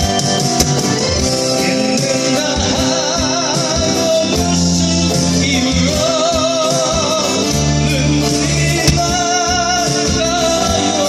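A singer performing a Korean song live with a strong vibrato on the held notes, over instrumental accompaniment with sustained chords and bass.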